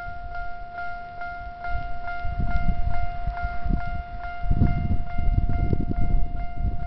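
Railway level-crossing warning bell ringing in a steady, even beat of about two and a half strikes a second. From about two seconds in, a low rumble builds underneath it and grows loudest near the end.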